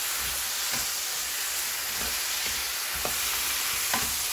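Squid and vegetables in a red pepper-paste sauce sizzling steadily in a frying pan while being stir-fried. Wooden spatulas scrape and knock against the pan a few times.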